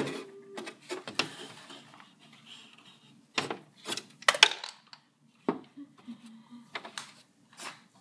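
Hard plastic toy pieces handled and bumped together: a string of light clicks and knocks, the loudest a quick cluster about four seconds in.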